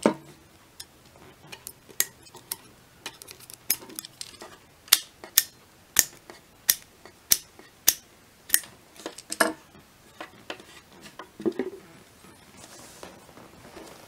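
Wildey pistol's gas regulator clicking through its detent as it is turned with a small screwdriver, a long run of sharp metal clicks at about one and a half a second. The clicks stop about nine and a half seconds in, followed by a softer knock.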